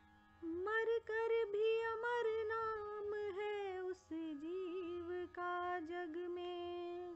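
A woman's voice singing a wordless, ornamented melodic line, as in the alaap of a bhajan. It glides between notes and holds long tones, starting about half a second in, with short breaks about a second and four seconds in.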